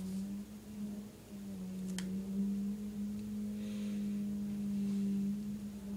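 A steady low hum with faint overtones, holding one pitch, with a single sharp click about two seconds in.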